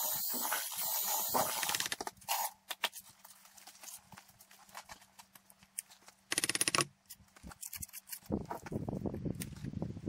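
Hand masonry work: a trowel scraping mortar, with scattered knocks and taps on stone. There is a short, loud grating scrape about six seconds in.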